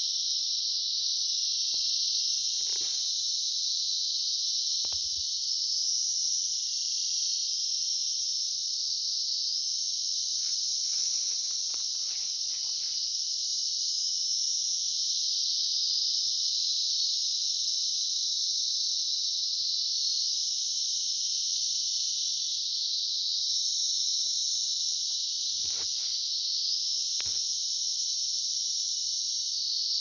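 Cicadas singing in chorus: a steady, high-pitched, unbroken buzzing drone, with a few faint clicks underneath.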